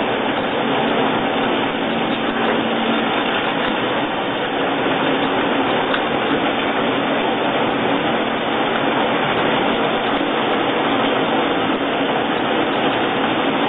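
Corn peeling and grinding machine running steadily: a loud, even rushing mechanical noise with a faint steady hum underneath.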